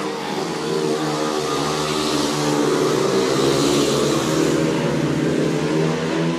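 Several speedway motorcycles racing round the track, their single-cylinder engines running together at high revs. The engines grow loudest about halfway through as the bikes pass closest, then ease off.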